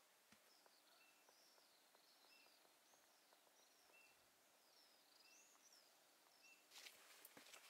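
Very faint bird song over near silence: a run of short warbling phrases that rise and fall, with a few brief thin steady notes between them. Near the end come a few soft scuffs and clicks.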